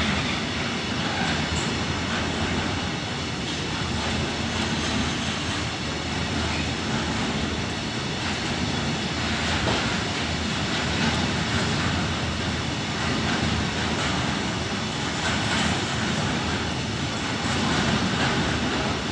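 A freight train of covered hopper wagons rolling past, a steady, continuous noise of wheels running on the rails.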